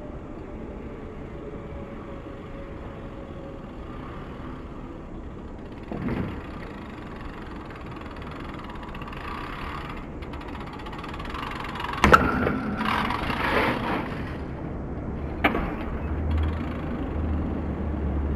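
BMX bike riding on concrete paving slabs, the rolling tyres under a steady outdoor hum, with a sharp clack of the bike landing hard about twelve seconds in and lighter knocks about six and fifteen seconds in. A low rumble comes in near the end.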